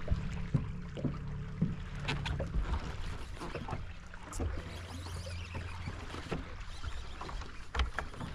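Water lapping against a bass boat's hull, with scattered small knocks and clicks and a low steady hum underneath.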